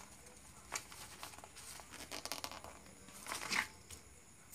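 A plastic debit card being peeled off the adhesive that holds it to its paper carrier letter: faint paper rustling and crinkling with a few small clicks, and a louder rustle a little over three seconds in.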